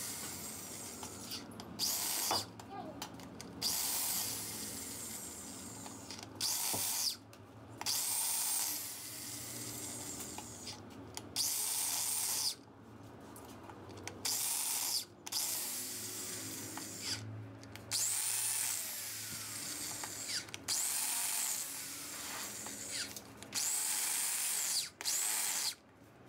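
A handheld electric power tool working on an engine's cylinder head, run in repeated short bursts. Each burst spins up to a high whine and winds down again.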